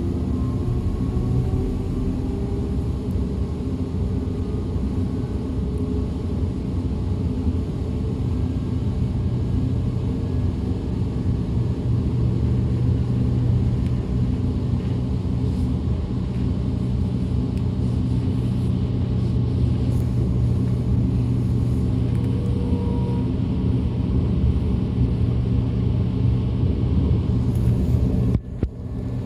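DB Class 425 electric multiple unit heard from inside the passenger compartment while running along the line: a steady rumble of wheels and running gear, with a faint rising whine from the traction equipment that fades in the first few seconds. The sound briefly drops away near the end.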